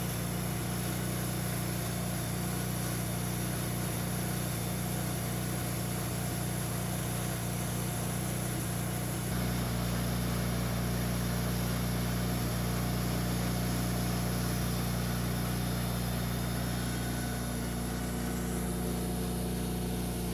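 An engine idling steadily, a low even hum that gets slightly louder about nine seconds in.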